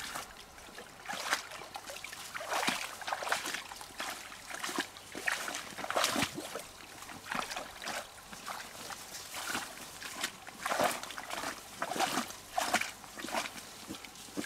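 Irregular wet sloshing, splashing and trickling in short bursts, several a second, as of wet mussel shells being handled in water.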